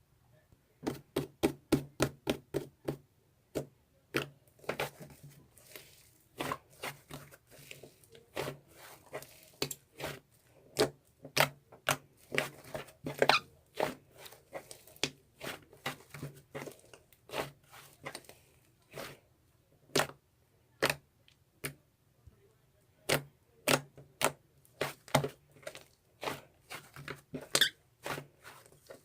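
Slime being pressed and squeezed by hand, giving a quick irregular run of sharp wet pops and clicks, several a second.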